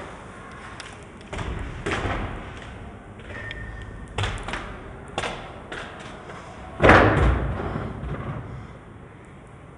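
A series of dull thumps and knocks, four or five in all, the loudest about seven seconds in and ringing on briefly.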